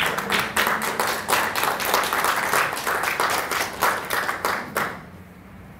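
Audience applauding, a dense patter of many hands clapping that thins out and stops about five seconds in.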